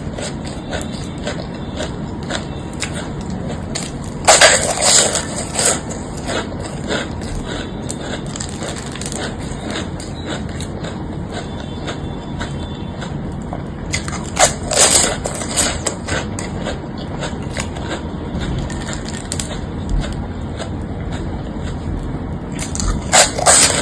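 Crisp panipuri shells crunching as they are bitten and chewed. There are three loud crunchy spells, about four, fifteen and twenty-three seconds in, over steady background noise.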